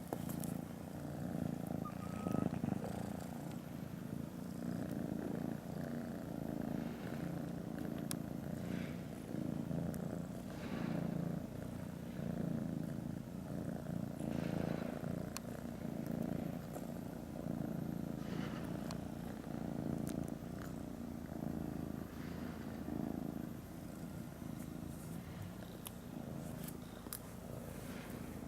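Cat purring continuously, the rumble swelling and easing in an even rhythm every couple of seconds as it breathes in and out.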